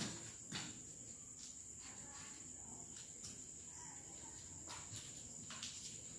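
Chalk tapping and scratching on a blackboard while words are written, heard as faint scattered clicks every second or so, over a steady high-pitched whine.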